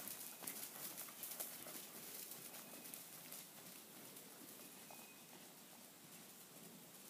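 Soft hoofbeats of a barefoot Swedish Warmblood horse moving over dirt arena footing, faint and irregular, thinning out after about three seconds as the horse moves away.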